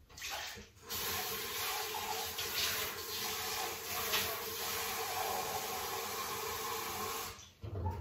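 Kitchen tap running, water filling a cup. It is a steady rush that starts about a second in and stops about a second before the end.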